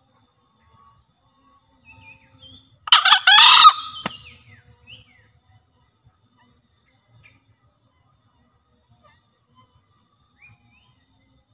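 Male green junglefowl crowing once, a short hoarse two-part call about three seconds in. Faint chirps of small birds before and after it.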